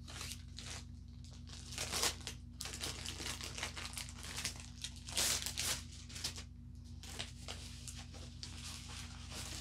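Crinkling and tearing of the wrap around a rolled diamond painting canvas as it is peeled open and the canvas unrolled: irregular rustling bursts, loudest about two seconds in and again around five seconds in.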